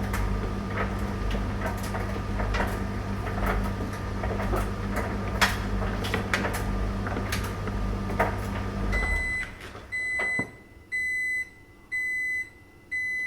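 Tumble dryer running with a steady motor hum and frequent light clicks, stopping abruptly about nine seconds in at the end of its cycle. It then sounds its end-of-cycle signal: a high beep repeated about once a second.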